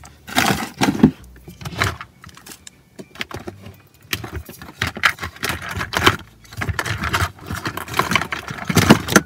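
Small plastic Beados beads rattling in a clear plastic bag as it is handled and shaken, in irregular bursts.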